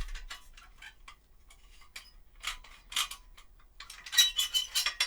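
Old metal press worked for a foley take: a string of irregular metallic clicks and ticks that thickens near the end into a quick rattling cluster with a faint metallic ring.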